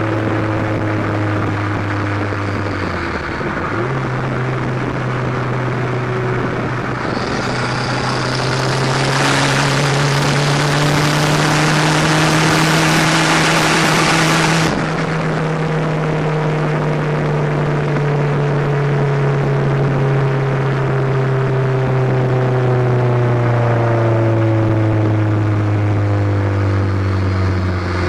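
Exhaust of a turbocharged Dodge Aries heard from beneath the rear of the car while driving. The engine pitch dips and picks up again about three seconds in. A loud rushing hiss builds from about seven seconds and cuts off suddenly near the middle. The engine note then eases steadily lower.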